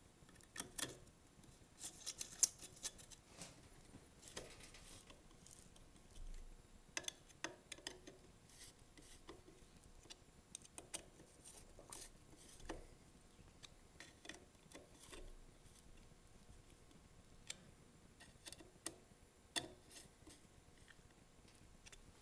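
Allen wrench working the muffler bolts of an Echo SRM-230 trimmer as the muffler is bolted back on: faint, irregular metal clicks and light scrapes, with a few sharper taps.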